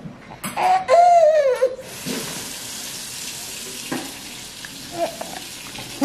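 A baby's high, wavering squeal lasting about a second and a half, then a steady hiss with a few short, faint baby noises.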